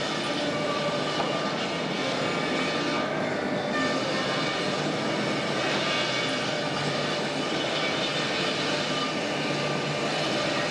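Wood-scrap grinder in a pallet mill running steadily as scrap boards are fed into it: an even, unbroken mechanical noise.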